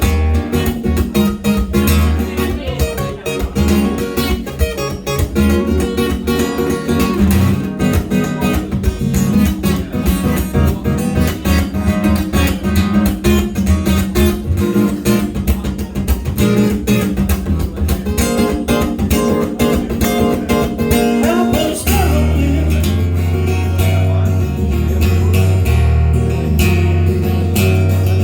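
Guitar music: a strummed guitar over a bass line. About two-thirds of the way through, the low bass notes become fuller and held longer.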